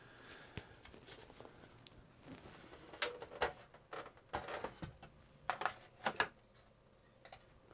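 Faint handling noise from the parts of a disassembled graphics tablet: scattered light clicks and taps as panels and circuit boards are moved, mostly in the middle of the stretch.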